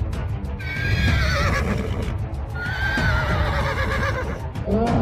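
A horse whinnying twice, each call wavering and falling in pitch, over background music with a steady low beat.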